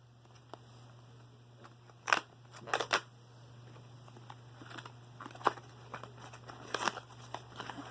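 Small toy packaging being opened by hand: a handful of short crackling, rustling bursts of cardboard and plastic wrapping, the loudest about two to three seconds in.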